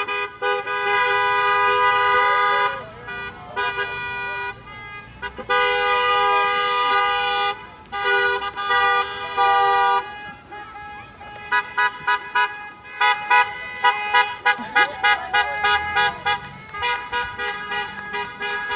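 Car horns honking from passing cars: three long held honks, then a quick run of short toots, about two a second, in the second half.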